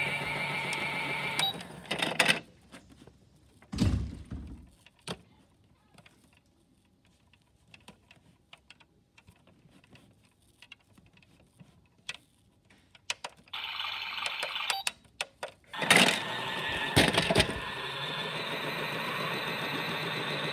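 Toy washing machine making its electronic warbling wash sound, which cuts off about a second and a half in. Plastic clicks and knocks follow as the toy's drum door is handled, then a quiet stretch with small ticks. The electronic sound starts again about two thirds of the way through, broken by a few sharp knocks.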